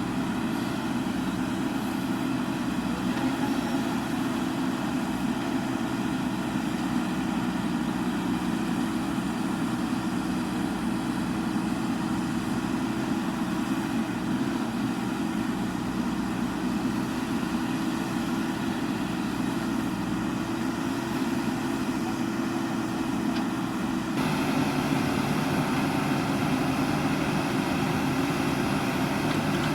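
Diesel engine of a JCB backhoe loader running steadily at a constant pitch. It suddenly grows louder and brighter about 24 seconds in.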